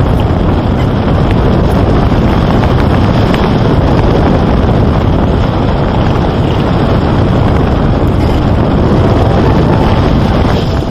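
Steady, loud rushing of wind, an even noise with no tone or rhythm in it.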